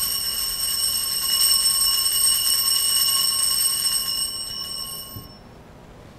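Altar bell rung continuously during the elevation of the chalice at the consecration, a bright steady ringing that fades out about five seconds in.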